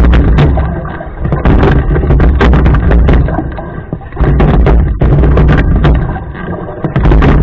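Rowing boat under way, stroke after stroke: a surge of heavy low rumble with sharp knocks roughly every three seconds, easing off in between.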